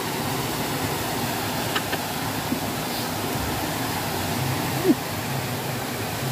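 Steady rush of water from a small weir waterfall and fast river current, with a faint click near two seconds in and a short, louder blip about five seconds in.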